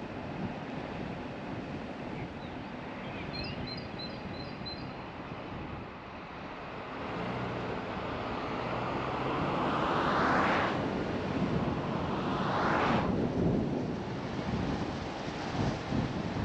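Steady road and wind noise from a car driving along a country road, with two oncoming cars whooshing past about ten and thirteen seconds in, each swelling and then falling away. A few faint high chirps sound about three to four seconds in.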